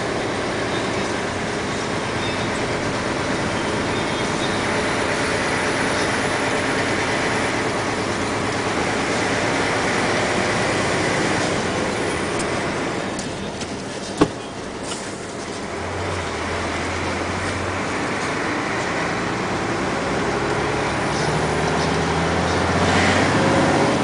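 A motor vehicle driving, its engine and tyre noise heard from inside the vehicle. There is a single sharp knock about fourteen seconds in, after which a low steady engine hum comes through and rises near the end.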